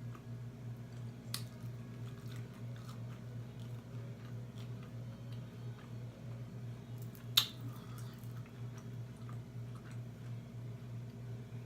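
Close-up chewing and biting of a chicken wing: small wet, crunchy clicks, with one sharp click about seven seconds in, over a steady low hum.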